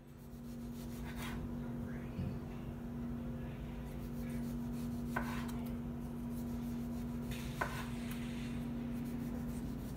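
Chef's knife slicing a tomato on a wooden cutting board, the blade knocking on the board about four times a few seconds apart, over a steady low hum.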